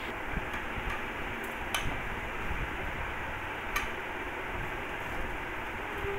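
Table knife spreading sauce on a slice of bread on a ceramic plate, with two sharp clicks of the knife against the plate about two seconds apart, over a steady background hiss.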